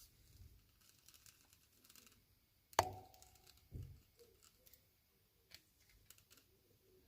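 Small plastic toy packaging and pieces being handled: light clicks and rustles, with one sharp plastic snap that rings briefly about three seconds in, followed a second later by a dull knock.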